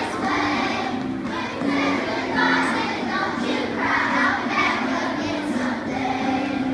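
A choir of schoolchildren singing a Christmas carol together.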